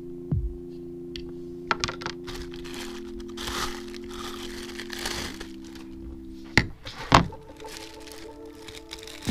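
Clear plastic packaging crinkling as the scrubber head is handled in its bag, with a few sharp knocks of plastic parts set down on a table, the loudest two near the middle. Soft background music of held notes underneath.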